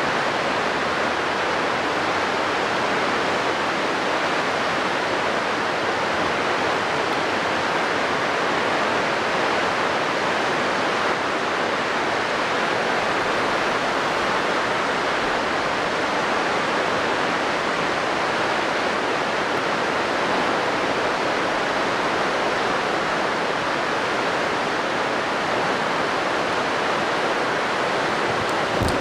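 Steady rushing of flowing water, an even noise that does not change. A short click comes just before the end.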